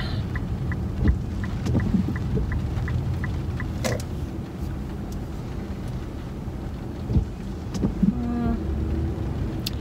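Car cabin noise while driving slowly in the rain: a steady low rumble of engine and tyres with the hiss of rain on the car. A light regular ticking, about three a second, runs through the first few seconds.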